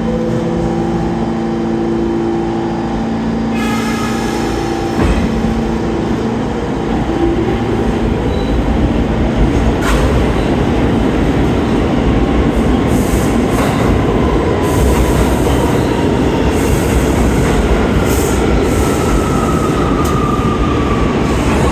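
R46 subway train pulling out of the station: a steady hum while it stands for the first few seconds, then a rumble of wheels on rail that builds as it gathers speed past the platform, with a falling whine near the end as it pulls away.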